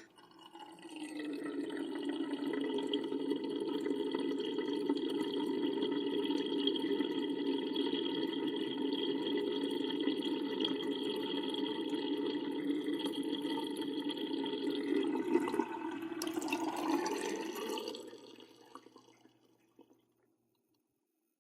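Water running steadily. Near the end its pitch rises briefly, then it fades away.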